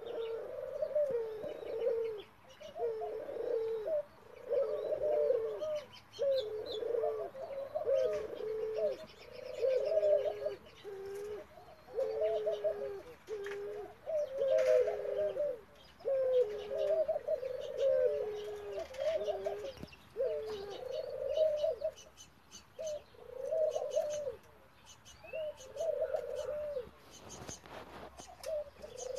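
Male F1 ringneck dove × European turtle dove hybrid cooing over and over: a long run of short coo phrases, each dipping in pitch, about one every second and a half, with faint high chirps behind.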